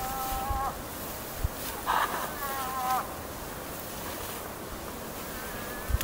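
Bull moose whining: two high whines each under a second long, the first ending just after the start and the second a couple of seconds in, each dropping in pitch as it ends.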